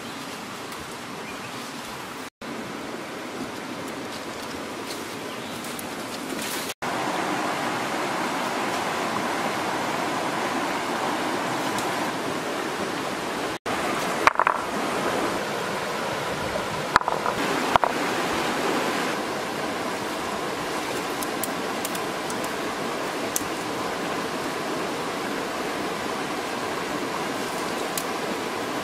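Steady rush of a fast mountain stream running over rocks, with a few short knocks and clicks about halfway through.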